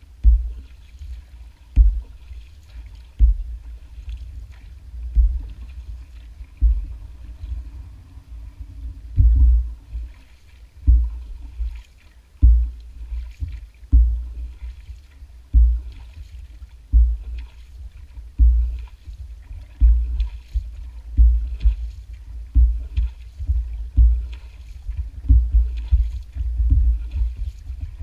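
A narrow boat being paddled by hand: a dull knock comes with each paddle stroke, about one every second and a half, over the swish and splash of the paddle in the water.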